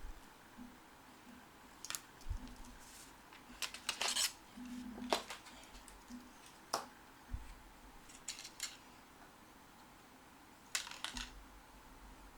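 Hands handling a watch and its packaging: irregular light clicks, taps and rustles, clustered around four to five seconds in and again near the end.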